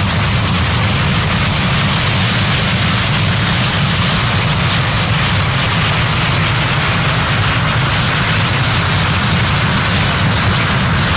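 Steady, dense electronic noise texture synthesized from a drawing by Coagula image-to-sound software: a heavy low rumble band under a broad hiss, holding without change.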